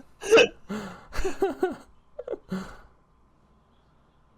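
Short human vocal sounds, brief exclamations or fragments of voice, for about the first two and a half seconds, then quiet.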